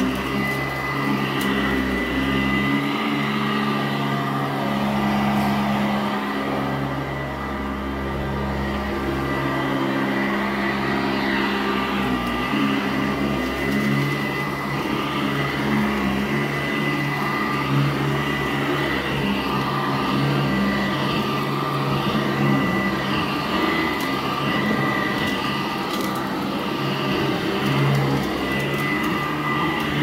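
Sanitaire SC886 commercial upright vacuum running steadily while it is pushed over carpet, its motor hum shifting in pitch and strength with each push and pull stroke. Scattered faint ticks are heard as dirt and grit are picked up.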